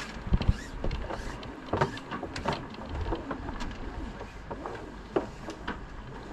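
Spinnaker halyard being hauled down hand over hand at a sailing yacht's mast, with irregular clicks and knocks from the rope and its hardware.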